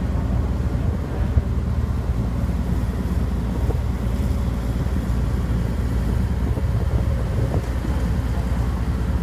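Heavy lifting machinery running steadily during a crane lift, a constant low engine rumble, with wind on the microphone.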